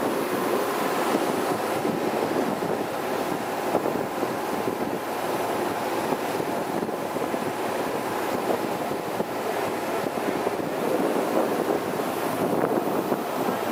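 River cruise boat under way: a steady rush of wind on the microphone over the boat's engine and its churning wake.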